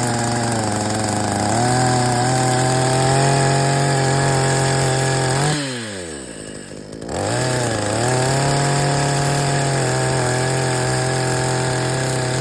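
Chainsaw engine running at high revs under throttle. About halfway through it drops away toward idle, then revs back up, and it eases off again at the end.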